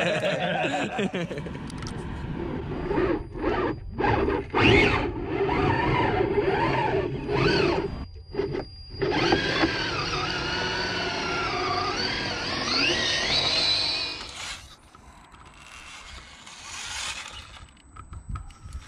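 Radio-controlled rock crawler's electric motor and gearbox whining, the pitch rising and falling with the throttle and stopping and starting in short breaks. It quietens near the end.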